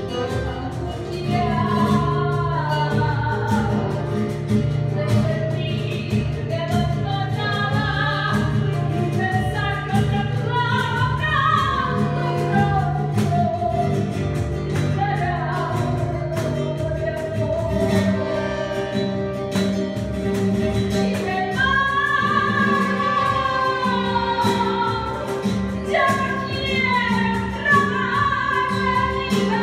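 Live tango music: a woman singing long, gliding phrases over acoustic guitar and accordion.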